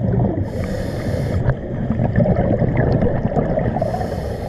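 Underwater scuba breathing: a regulator hisses twice, about a second in and again near the end, over a continuous low rumble of exhaled bubbles and rushing water from a strong current.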